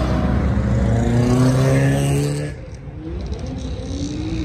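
Car engine accelerating as it pulls away, its note rising steadily for about two and a half seconds before fading. A second car accelerates with a rising note near the end.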